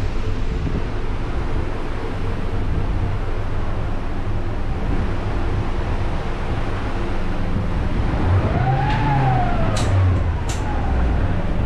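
Steady low rumble of the ferry's engines heard inside the wheelhouse. About eight seconds in, a whine rises and then slowly falls, with two short high squeaks.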